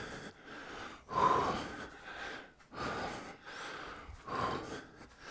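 A man breathing hard while exercising: several loud, airy breaths, about one every second and a half.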